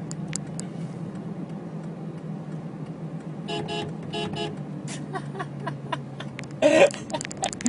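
Steady low drone of a car moving slowly, heard from inside the cabin, with two short car-horn toots about three and a half seconds in. A louder, brief sound with a bending pitch comes near the end.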